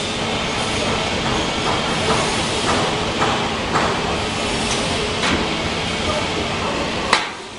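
Straight-seam welding machine at work on a steel water heater tank: a steady hiss with several light knocks and clicks. About seven seconds in, a sharp click comes and the noise briefly drops.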